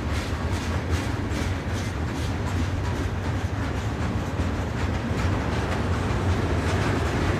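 Freight cars of a long mixed freight train rolling past: a steady low rumble of steel wheels on rail, with repeated wheel clicks.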